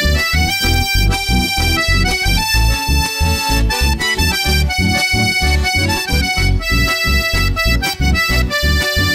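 Instrumental chamamé: accordion playing the melody in long held notes over a steady pulsing bass beat.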